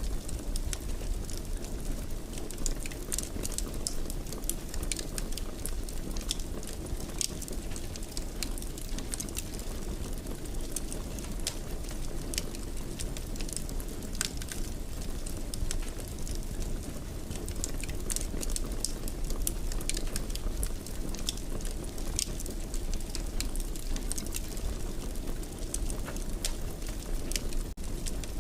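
Fire crackling in a fireplace: a steady low rumble of flames with frequent small, irregular pops and snaps.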